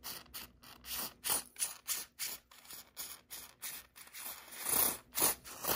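Aerosol contact cleaner sprayed through an extension straw into an open slide fader in a rapid series of short hisses, about three to four a second, with a longer hiss near the end, blowing dirt out of the fader.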